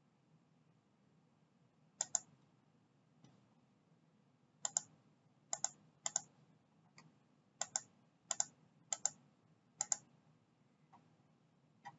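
Computer mouse clicks: about ten separate clicks at uneven intervals, most a quick double tick, over a faint low hum.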